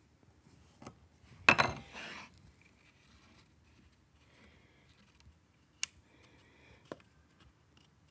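A chisel chops through a thin wooden inlay strip on the bench with a sharp snap about a second and a half in, followed by a short scrape. Then there is faint rubbing and two light clicks as the strip pieces are pressed into the groove around the wooden box lid.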